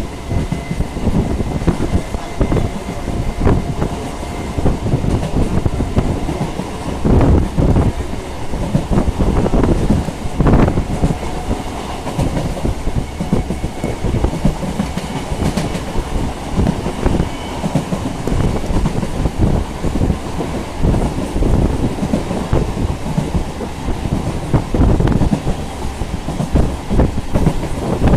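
Electric multiple unit local train running along the track: a steady rumble with irregular clacks and knocks of the wheels over rail joints.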